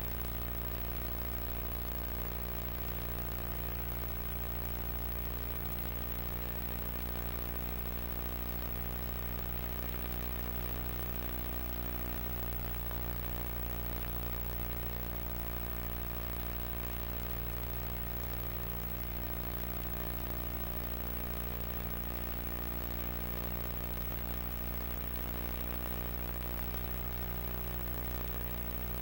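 Steady low electrical hum with a stack of buzzing overtones over a constant hiss: mains hum and tape hiss on the soundtrack of an old analog video recording, unchanging throughout.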